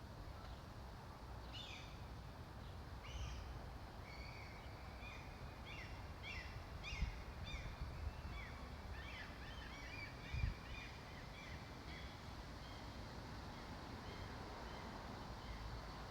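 Birds calling in many short, falling chirps over a steady low rumble, with two brief low thumps about seven and ten seconds in.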